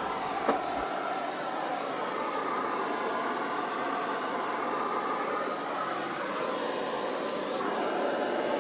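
Steady whooshing machine noise, like a running blower or fan, with a faint click about half a second in.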